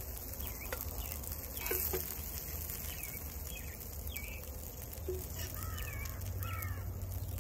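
Birds chirping outdoors in short, scattered calls, with a quicker run of calls about six seconds in, and a few light scrapes of a spatula in a cast iron skillet as food is dished out.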